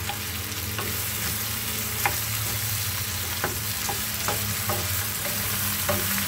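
Chicken pieces sizzling as they pan-fry in oil in a nonstick pan, with a handful of short taps from a wooden spoon against the pan as they are stirred.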